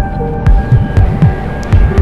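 Electronic background music: deep, pulsing bass hits about twice a second, some dropping in pitch, under held synth notes, with sharp ticks over the top.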